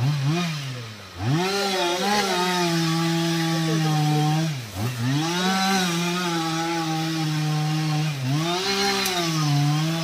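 Petrol chainsaw cutting into the base of a teak trunk at high revs. Its engine note dips and climbs back several times as the throttle is eased and reopened.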